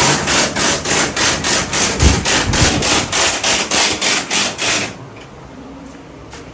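Rapid, evenly spaced hammering impacts, about five a second, that stop abruptly about five seconds in.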